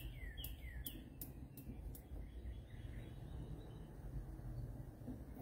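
A bird singing a run of short falling notes, about two a second, in the first second. Sharp high clicks carry on at the same pace until about two seconds in, over a faint steady low rumble.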